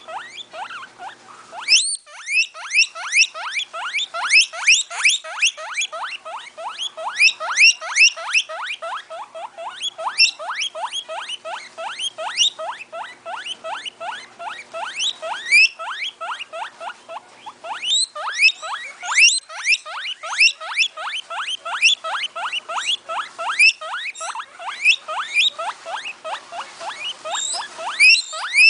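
Guinea pig squeaking: a long, rapid run of short squeaks, several a second, each rising in pitch, with a few brief pauses.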